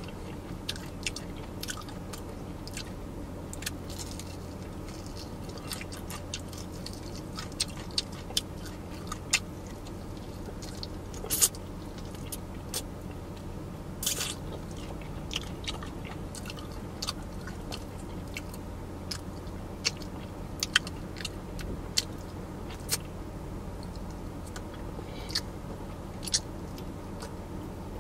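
Close-up chewing of crispy fried chicken: irregular sharp crunches and crackles of the breading between the teeth, over a steady low hum.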